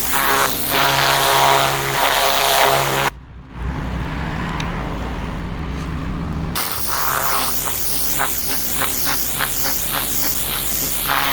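Background electronic dance music with a steady beat and sweeping effects. About 3 seconds in, everything but the bass suddenly drops out for a few seconds, then the full track comes back.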